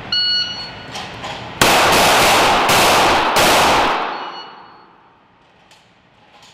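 A shot timer beeps once, then an M17 9mm pistol fires a quick string of about five shots, each one smeared by the long echo of an indoor range, the echo dying away over about a second after the last shot.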